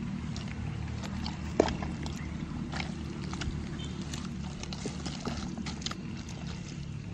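Bare feet and hands working wet paddy mud: irregular squelches, clicks and grass rustles, with one sharper click about one and a half seconds in. A steady low rumble runs underneath.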